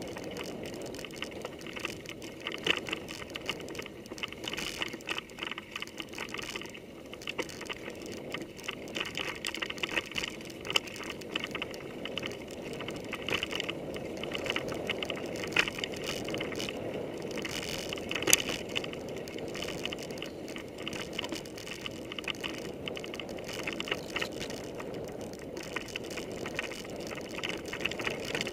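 Mountain bike ridden over a bumpy forest dirt trail, heard through a handlebar-mounted camera: steady tyre and drivetrain noise with frequent rattles and knocks as the bike jolts over the ground, one sharper knock about 18 seconds in.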